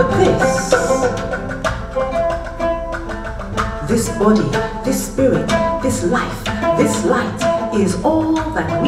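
Live acoustic music: an oud plucking a melody over a hand-drum rhythm.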